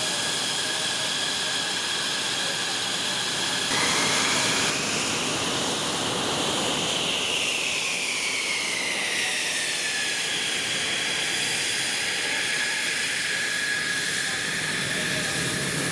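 F-16 fighter's jet engine running on the ground: a steady high whine over a hiss. About four seconds in, the whine's pitch rises, then slowly falls back over the next several seconds.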